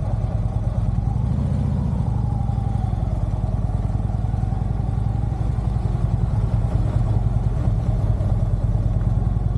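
Harley-Davidson air-cooled V-twin motorcycle engine running steadily, with a low, rapid pulsing exhaust note.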